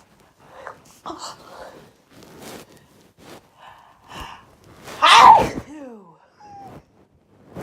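A person sneezing once, loud, about five seconds in, with a falling voiced 'achoo', part of a sneezing fit. Several short, quieter sharp breaths come before it.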